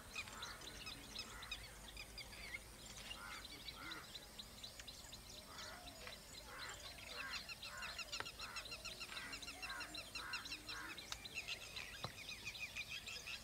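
Faint chorus of birds calling: many quick, high chirps over repeated lower call notes, with a single click about twelve seconds in.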